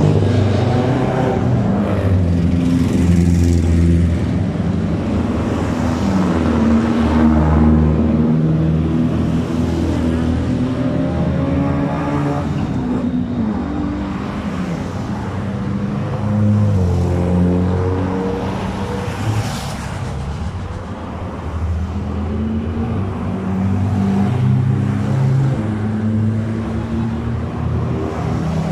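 A line of rally cars and other vehicles driving past one after another, engines running loud, their pitch rising as they accelerate and dropping at gear changes, with the noise swelling as each one passes.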